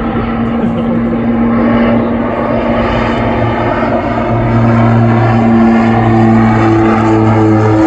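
OV-10 Bronco's twin Garrett T76 turboprops running, a steady propeller drone that grows louder as the aircraft approaches. Higher tones join about halfway through and waver against each other.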